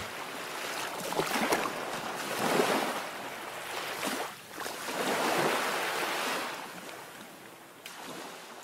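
Sea surf: waves washing in and drawing back in several slow swells, fading out near the end.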